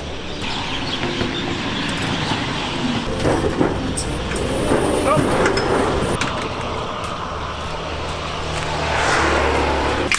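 Roadside street ambience: people talking in the background, with car traffic going by on the road.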